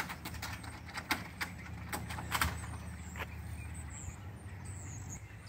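Footsteps on a gravel lot, irregular sharp clicks and crunches over a low steady outdoor rumble, with faint high bird chirps about four seconds in.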